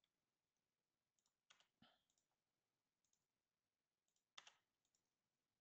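Near silence with a few faint short clicks: two about a second and a half in, close together, and one more about four and a half seconds in.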